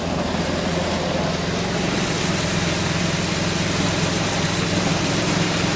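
A vehicle engine running steadily under a loud, even rush of noise.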